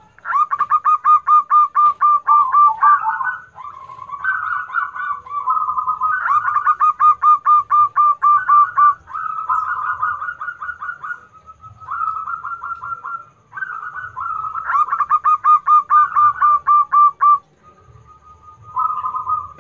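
Zebra doves (perkutut) singing: phrase after phrase of rapid, short cooing notes around a steady pitch, with brief pauses between phrases and at times two birds' notes overlapping. This is the continuous 'gacor' song used as a masteran track to train other perkutut to answer.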